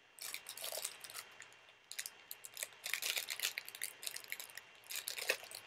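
Small plastic toy figures being handled, with a run of light clicks and crinkly rustles in clusters.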